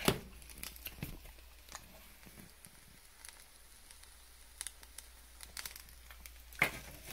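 A phone knocking against a kitchen counter as it is set down, then again as it is picked up near the end, with scattered light clicks and handling noise between.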